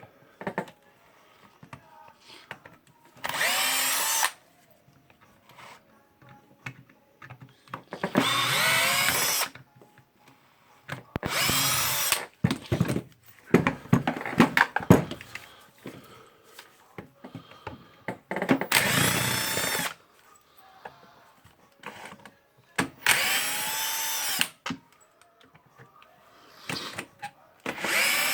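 Power drill fitted with a flathead screwdriver bit, run in six short spurts of about a second each, its whine rising in pitch as it spins up each time, backing out the six flathead screws that hold a rotary hammer's handle. Small clicks and knocks of screws and tool come between the runs.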